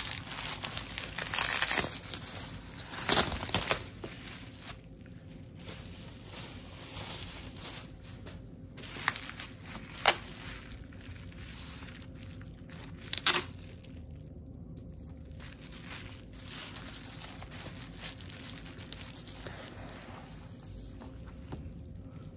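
Taped packaging being pulled open and handled: crinkling and crumpling in irregular bursts, loudest in the first few seconds, with a couple of sharp crackles about ten and thirteen seconds in, then only faint handling.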